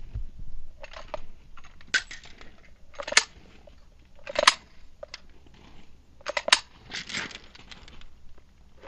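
Handgun being handled: a string of sharp clacks, four of them standing out, with rustling and scraping between.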